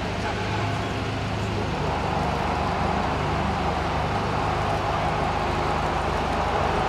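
Avro Anson C19's two Armstrong Siddeley Cheetah radial piston engines running steadily with a throbbing drone, getting a little louder about two seconds in.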